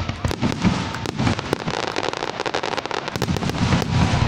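Aerial fireworks bursting overhead: a dense, rapid string of sharp pops mixed with heavier low booms.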